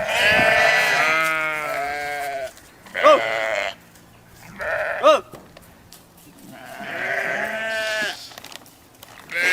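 An animal bleating in about four wavering calls, the first over two seconds long and the others shorter.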